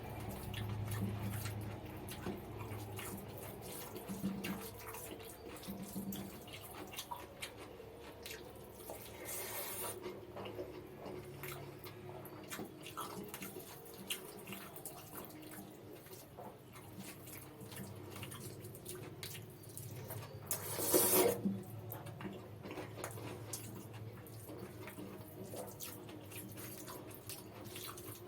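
Close-miked wet eating sounds of mutton biryani with raita: chewing and mouth smacks as many small clicks, over a low steady hum. There is a brief louder noisy burst about a third of the way in and a stronger one about three-quarters through.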